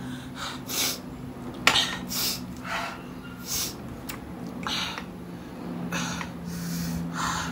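A person breathing hard and sniffing in repeated short, hissing breaths against the burn of very spicy Samyang fire noodles, with a sharp click about two seconds in.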